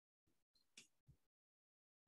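Near silence, with two very faint brief sounds about a second in.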